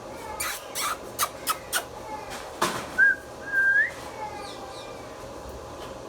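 Indian ringneck parrot calling: several short, sharp calls, then about three seconds in a whistle, a brief note followed by a longer one that rises at the end.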